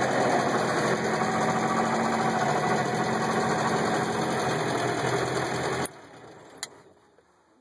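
Moskvitch 402's four-cylinder side-valve engine idling steadily, heard from inside the cabin, then switched off about six seconds in, after which it quickly dies away. A single click follows. The owner notes a slightly noisy water pump and valve clearances that need adjusting on this engine.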